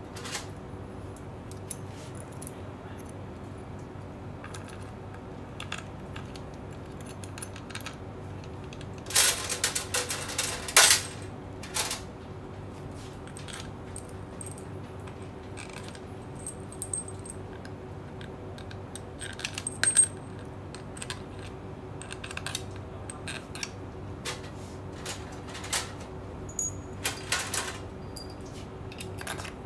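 Small steel bolts clinking and rattling as they are handled and set into the bolt holes of a 4L60E transmission's aluminium valve body, in scattered clicks with louder clusters about nine to twelve seconds in and again near twenty seconds. A steady low hum runs underneath.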